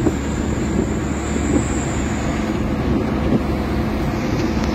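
Steady road noise from a car travelling at highway speed: tyre rumble and engine drone.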